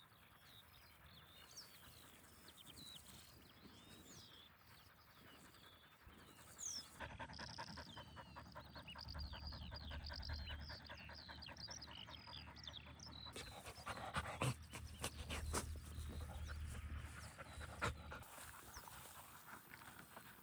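A dog panting in quick, even breaths, starting about a third of the way in, with birds chirping.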